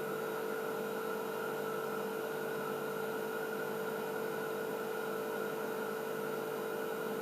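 Steady electrical hum with a held mid-pitched tone over a constant hiss, unchanging throughout: the recording's background noise while nobody speaks.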